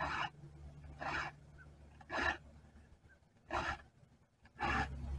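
Round chainsaw file rasping across the cutter teeth of a saw chain, sharpening it by hand in five even push strokes, about one every second and a quarter.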